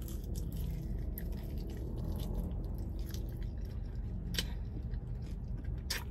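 A person chewing chicken wings close to the microphone, with a few short sharp clicks, the loudest about four seconds in and just before the end.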